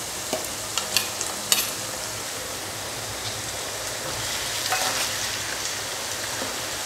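Onions and chillies sizzling in hot oil in a nonstick pan as onion paste is scraped in from a bowl and stirred with a metal spoon. A few sharp clicks of the spoon come in the first second and a half.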